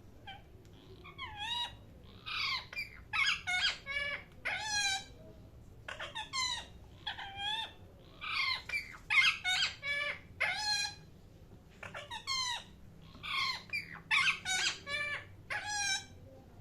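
Parrot chirping and squawking in three runs of quick, high calls that waver in pitch, with short pauses between the runs.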